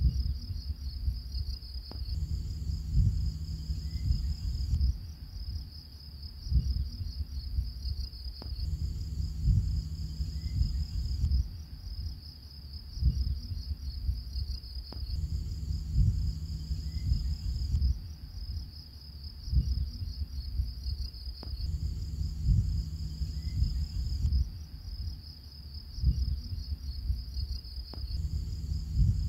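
Crickets chirping in a steady high trill over a low rumble. The same pattern repeats every six to seven seconds, like a looped nature ambience track.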